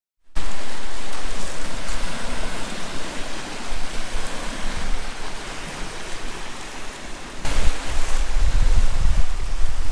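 Wind gusting and buffeting the microphone, a steady rushing noise with a heavy low rumble that strengthens about seven and a half seconds in.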